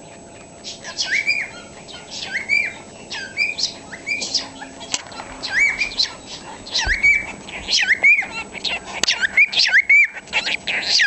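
Cockatiel gibbering: a run of short whistled chirps that starts about a second in and gets busier and louder toward the end.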